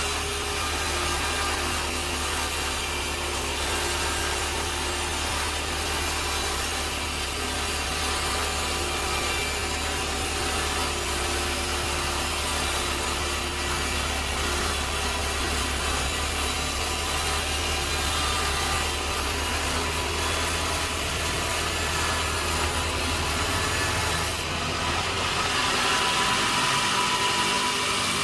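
Sawmill saw cutting through a log: a steady machine run with a continuous cutting sound over a low hum. Near the end the low hum falls away and the sound turns brighter.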